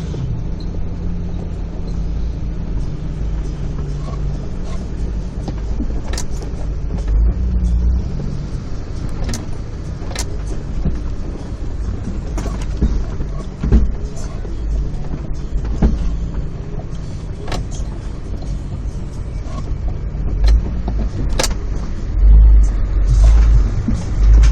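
Four-wheel-drive vehicle running at low speed over a rocky creek crossing: a steady low engine rumble with a dozen or so sharp knocks scattered through it, and louder surges near the end.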